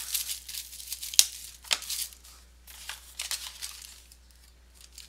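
Trading-card packaging being opened by hand: crinkling and tearing, with a couple of sharp snaps about a second in, dying down to light rustling near the end.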